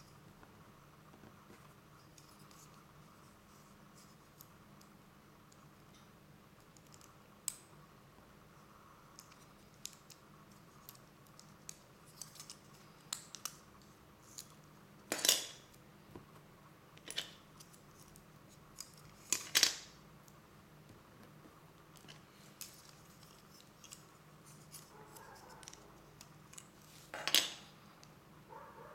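Light clicks and taps of plastic model-kit parts being handled, with three louder plastic clatters, two around the middle and one near the end, over a faint steady hum.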